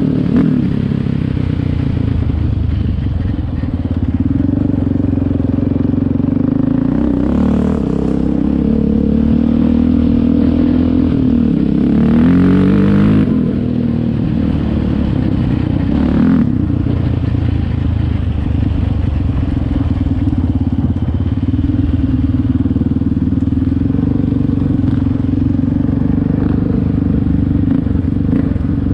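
An ATV's engine heard from on board while riding, rising and falling in pitch as the throttle is worked about a third of the way in, otherwise holding a steady pull.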